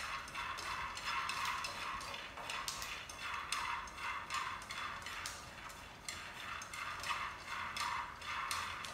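Chopsticks stirring nuts dry-roasting in a frying pan: a steady run of irregular clicks and rattles as the nuts tumble against the pan, over a light hiss.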